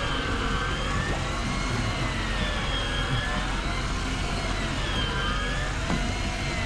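A motor running steadily with a low rumble and a whine that slowly rises and falls every second or two.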